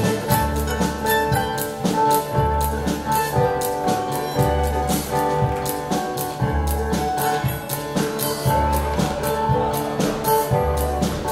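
Live contra dance band playing a dance tune with a steady beat and a moving bass line.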